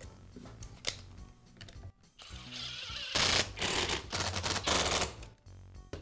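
Screws being driven into the plastic side cover of a Ryobi string trimmer's throttle handle with a screwdriver. A couple of light clicks come first, then about three seconds of loud, rapid clicking that stops about a second before the end.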